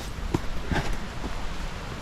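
A few light knocks and rustles over a low wind rumble on the microphone.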